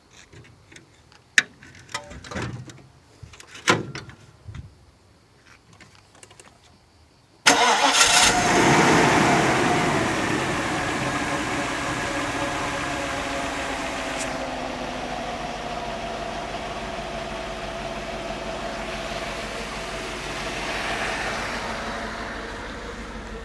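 A few scattered clicks and knocks, then the Mercedes-Benz SL500's V8 starts about seven seconds in. It is loud right after it catches and settles into a steady idle.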